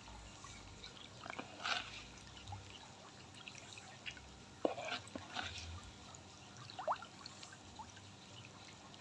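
Aerated fish-pond water bubbling faintly, with small scattered splashes and drips.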